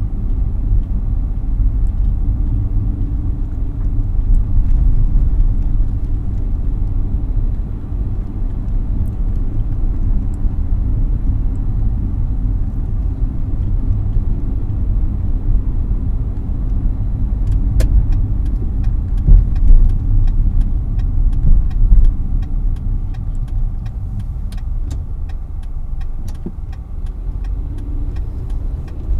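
Car cabin road noise while driving: a steady low rumble of engine and tyres. From a little past halfway there are also many faint, quick clicks.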